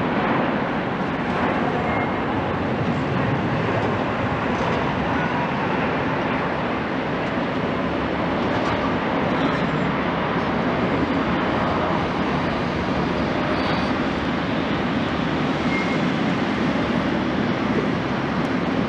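Boeing 787-9's twin Rolls-Royce Trent 1000 turbofans at takeoff thrust: a steady jet noise through the takeoff roll, rotation and climb-out.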